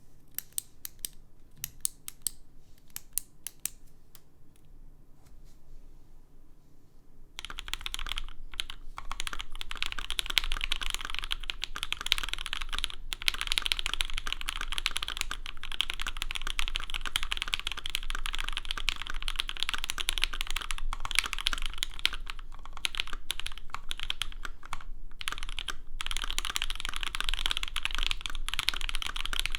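Typing on a Saka68 mechanical keyboard with lubed, filmed Alpaca v1 linear switches on a carbon fiber plate and GMK Olivia++ keycaps. There are a few separate clicks during the first seven seconds, then fast continuous typing from about seven seconds in.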